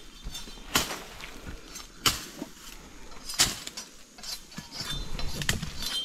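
Four short, sharp clicks or snaps, spaced a second or more apart, over a faint hiss.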